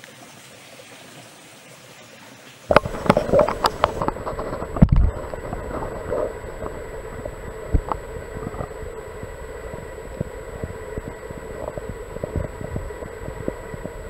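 A faint steady hiss, then about three seconds in the sound changes abruptly to a louder, muffled underwater recording of stream water: swishing and gurgling with many clicks and knocks, one heavy thump about five seconds in, over a steady hum.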